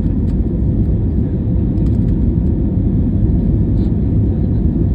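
Airplane engines at takeoff: a steady, loud low rumble.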